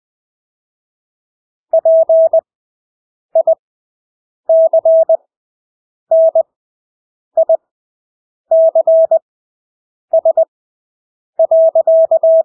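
Morse code (CW) practice tone: a single steady beep keyed on and off in dits and dahs at 20 words per minute. The letters are sent at full speed but spread out by wide Farnsworth gaps, about eight characters after a short silence at the start.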